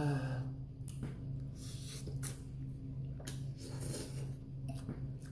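Close-miked mouth sounds of a man eating very spicy instant noodles: a short voiced exhale at the start, then scattered brief slurps, chews and sharp breaths through the mouth from the burning heat. A steady low hum runs underneath.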